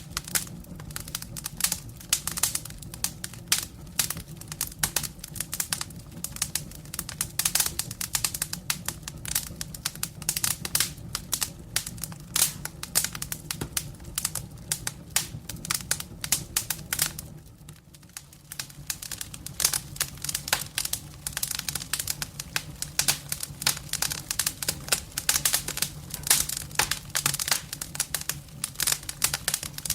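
Campfire crackling: dense, irregular pops and snaps over a low steady rumble, briefly quieter about eighteen seconds in.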